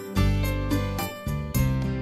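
Soothing instrumental background music with a steady beat.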